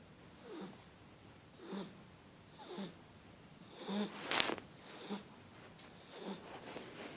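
Shar pei puppy snoring in its sleep: short snoring breaths about once a second, each with a squeaky whistle, and one louder, sharper snort near the middle.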